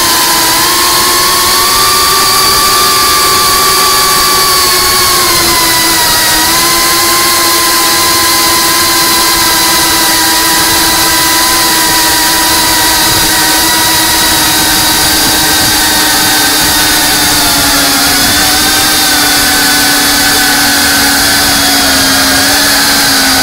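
FPV quadcopter's brushless motors and propellers whining steadily in flight over a constant hiss, the pitch dipping briefly about six seconds in and sagging lower near the end as the throttle eases.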